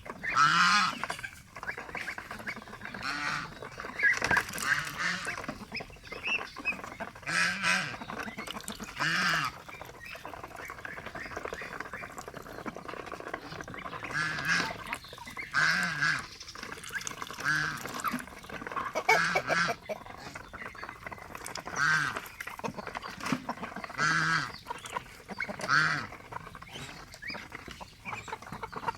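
Pet geese honking and ducks quacking, many separate short calls coming irregularly one after another.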